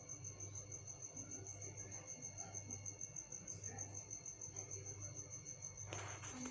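A cricket chirping steadily in fast, even pulses of one high tone, faint against a low steady hum. A brief rustle comes near the end.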